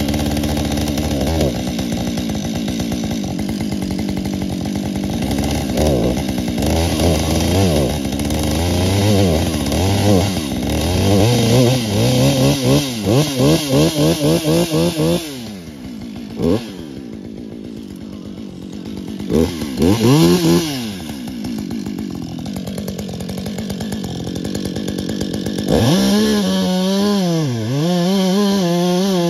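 Husqvarna XPG two-stroke chainsaw running and being revved up and down repeatedly, with a quick series of throttle blips. It drops back to idle about halfway through, gives a couple of short revs, then runs at high revs again near the end with the pitch wavering.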